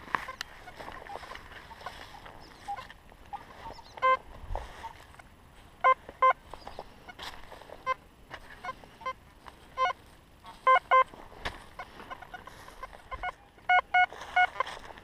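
XP Deus metal detector giving short beeps, several in quick pairs, with the last few higher in pitch. This is the detector's target signal over buried metal.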